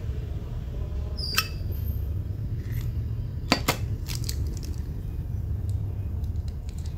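A few small, sharp metallic clicks from a vintage Zippo lighter being handled: one about a second in, then two close together near the middle, over a steady low hum.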